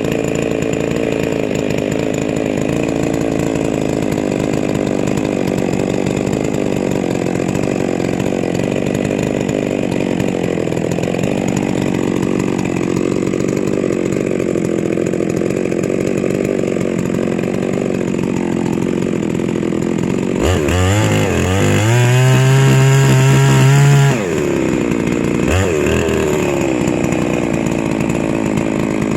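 Huztl MS660 clone two-stroke chainsaw running hard as it rips lengthwise through a log on a chainsaw mill. About two-thirds of the way in, the engine note climbs and holds higher and louder for about three seconds, then drops back, with a brief rise again soon after.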